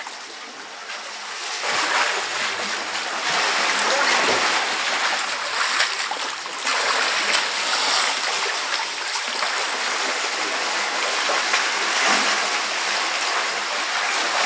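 African elephants splashing and sloshing in a muddy waterhole: a continuous wash of splashing water and mud, softer for the first second or two and then steady.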